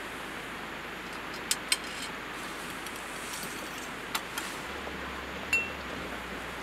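A few sharp clicks and clinks of small hard objects, the loudest near the end with a brief high ring, over a steady rushing hiss.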